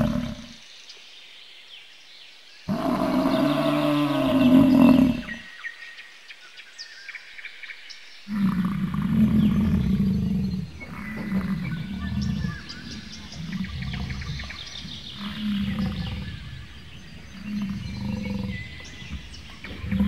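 American bison bellowing: one long, deep call from about 3 to 5 seconds in, then from about 8 seconds a run of shorter deep bellows repeating every second or so.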